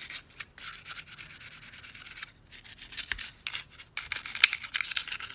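Stiff cleaning brush scrubbing the oiled body of a Glock pistol in short, irregular scratchy strokes, the strongest about four and a half seconds in.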